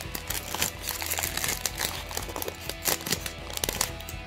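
Foil wrapper of a Pokémon TCG booster pack crinkling and crackling in the hands as it is torn open, with background music playing under it.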